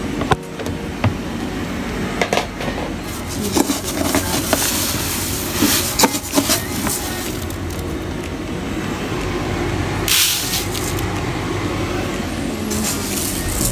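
Rice being scooped from a plastic storage bin: clicks and knocks of the plastic container and its lid, with a short rush of grains about ten seconds in, over a steady low background rumble.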